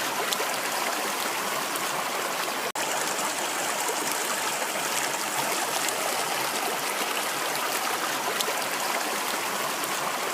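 Running water rushing steadily. It cuts out for an instant a little under three seconds in.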